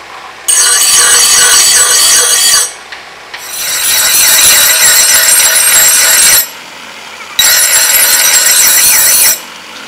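Bench grinder wheel grinding a steel cleaver blade made from leaf spring, giving a loud shrill screech in three long stretches. Between them it drops abruptly for about a second to a quieter sound.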